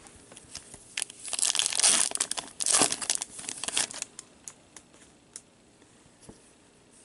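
A foil trading card pack wrapper crinkling and tearing open in several bursts over about three seconds, followed by a few faint ticks of cards being handled.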